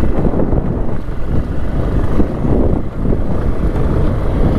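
Motorcycle running as it rides over a rough dirt track, a steady low rumble.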